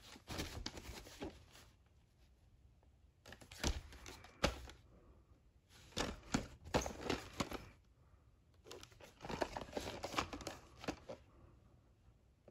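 A cardboard VHS sleeve is handled and turned over on a cloth-covered table, in four bursts of rustling and scraping. Two sharp knocks come a little under a second apart about four seconds in.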